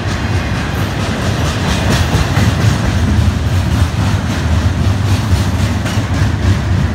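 Freight train cars rolling past close by: a loud, steady rumble of wheels on rail with a rapid clatter running through it, a "ruckus".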